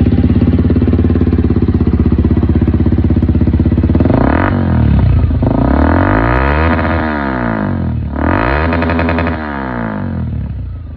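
Suzuki Gixxer SF 250's single-cylinder engine idling through an aftermarket slip-on exhaust, then revved three times, with the pitch rising and falling back to idle each time.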